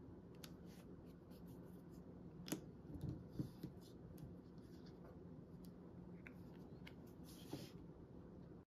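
Faint handling sounds of crafting on paper: light scratches and small taps of a pointed tool and a glue bottle against cardstock over a low room hum. A few louder taps come about two and a half to three and a half seconds in, and the sound cuts off abruptly just before the end.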